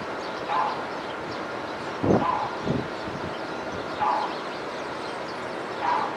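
Short, fairly low calls from birds, one every second or two, over a steady background hiss.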